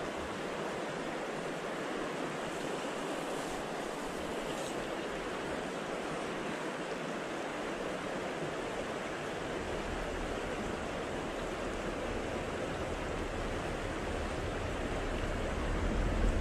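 South Platte River running past, a steady rush of flowing water; a low rumble builds in the last few seconds.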